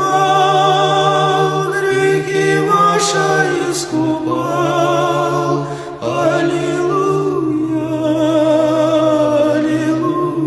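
A cappella vocal ensemble singing held chords with vibrato over a sustained low bass note, the harmony changing about every two seconds.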